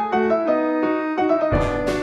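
Background music: a piano-like keyboard playing a run of quick notes. About one and a half seconds in, a heavy low hit comes in and the music turns fuller.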